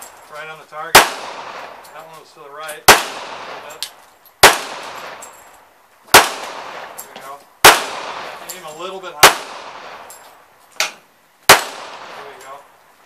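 Seven handgun shots fired one at a time, roughly every one and a half to two seconds, each followed by an echo dying away.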